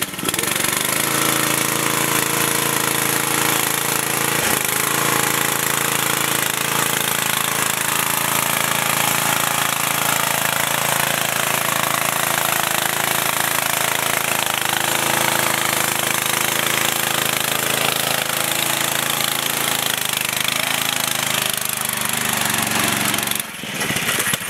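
Off-road riding lawn mower's small engine running hard at a steady, high speed, then cutting out abruptly near the end.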